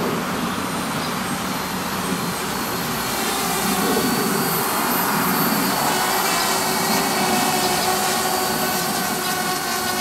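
Parrot Bebop Drone quadcopter's propellers whirring steadily in flight, with a whine of several steady tones that grows clearer about halfway through.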